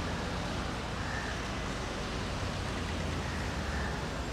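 Steady outdoor street ambience: an even hiss with a constant low rumble, with no distinct events standing out.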